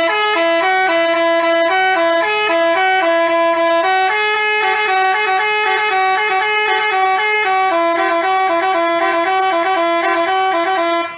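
Basuri telolet bus horn, a multi-trumpet musical horn, playing a quick melody of short stepped notes. The tune runs loud and unbroken, then cuts off just at the end.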